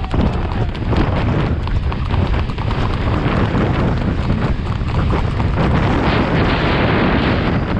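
Horse hooves beating quickly and evenly, under heavy wind buffeting on the microphone.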